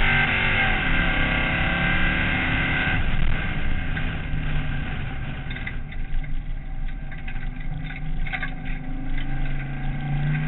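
Dirt-circuit race car's engine heard from inside the cockpit: at full power, dropping in pitch just after the start and easing off about three seconds in, with a few knocks and rattles from the car on the dirt, then coming back on the power near the end.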